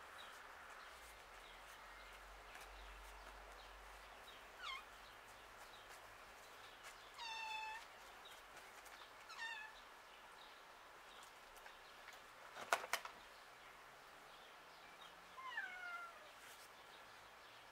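A cat meowing about four times, short calls that mostly fall in pitch, spaced a few seconds apart, the longest a little before halfway. About two-thirds of the way in comes a quick cluster of sharp knocks, the loudest sound here.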